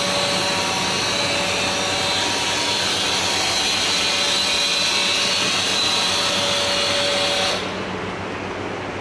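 KNOPP Duplex double-side glass drilling machine running, a steady whirring motor noise with a high whine in it. The noise cuts off suddenly about seven and a half seconds in, leaving a quieter steady hum.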